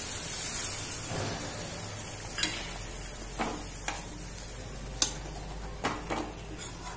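Water poured into hot tomato-and-onion masala in a metal kadai, sizzling. A metal slotted spoon stirs the thinned gravy and knocks against the pan several times, the sharpest knock about five seconds in.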